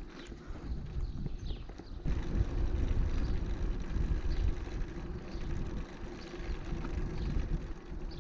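Wind buffeting the microphone in a low rumble, with a run of hard, irregular clacking knocks on top.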